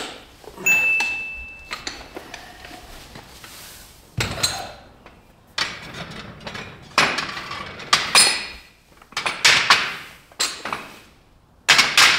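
Iron dumbbells clanking against each other and the metal rack as they are put down and handled: a string of sharp metal knocks at uneven intervals, one about a second in ringing on briefly.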